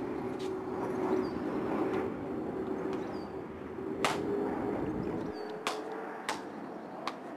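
Sharp clicks and knocks of a house door's handle and latch being worked, four in the second half, over a steady low hum.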